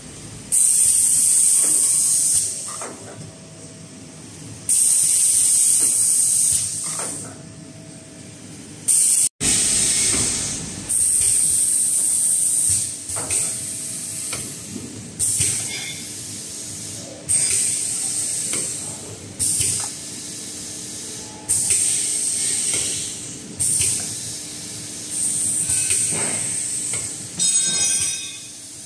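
Automatic cup filling and sealing machine cycling: repeated sharp hisses of compressed air, each lasting one to two seconds and coming every two seconds or so, over a faint steady hum. A brief rapid rattle comes near the end.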